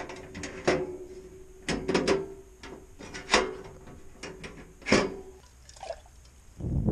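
Clicks, clacks and knocks of a portable two-burner camp stove's hinged lid and steel grate being handled and closed, about seven separate hits. A loud rushing noise starts near the end.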